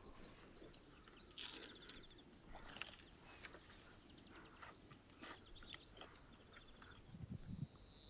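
Near silence with faint scattered clicks and taps, one sharper tick about two seconds in and a short low thud near the end.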